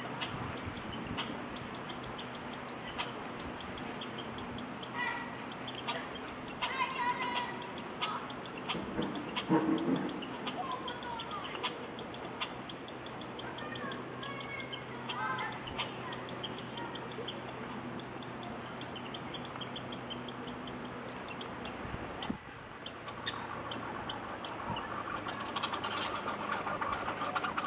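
Birds chirping: a high short note repeated about twice a second, with lower chirps now and then, over frequent sharp clicks.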